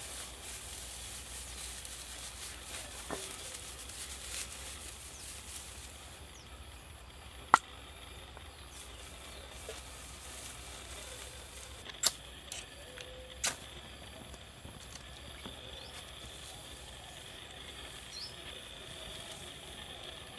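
A few sharp snaps of small sticks being handled as a fire is laid: the loudest about seven and a half seconds in, three more between twelve and fourteen seconds. Under them runs a steady high hiss of outdoor ambience.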